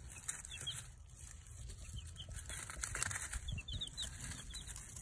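Baby chicks peeping: short, high, falling chirps in scattered clusters. About halfway through, the wood-shaving bedding rustles as the chicks move about in it.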